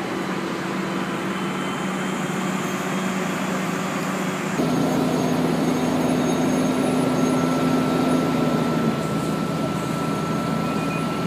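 Fire truck engines running steadily under a constant hiss, with a few held tones. The sound shifts abruptly about four and a half seconds in and gets a little louder.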